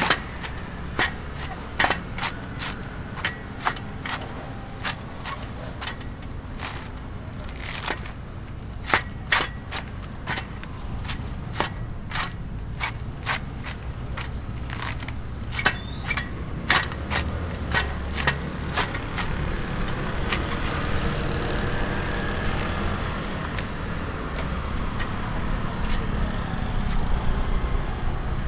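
Green coconut husk being torn off by hand: the fibrous husk gives sharp, irregular cracks and snaps as it splits, with rougher scraping of fibre toward the end. A steady low rumble runs underneath.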